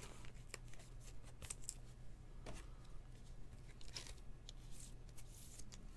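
Faint scattered clicks and light scrapes of a trading card and a clear plastic card holder being handled.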